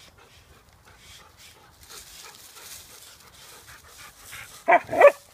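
A dog panting quietly, then two quick, loud barks near the end.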